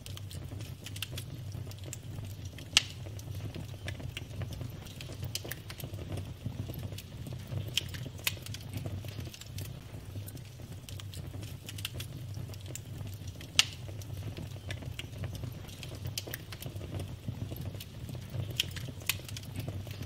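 Logs burning in a wood fire, crackling: a steady low rumble with frequent small sharp pops and crackles, and two louder pops, about three seconds in and about two-thirds of the way through.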